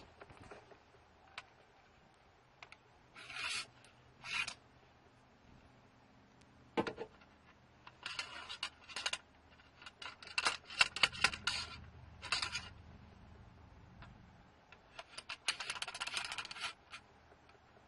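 Close handling noise: short bursts of rustling and scraping with a few sharp clicks, in clusters a few seconds apart.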